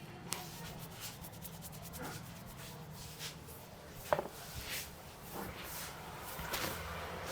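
Hands rubbing and pressing on a head and skin during a head massage, with scattered light clicks and pats and one sharper click about four seconds in.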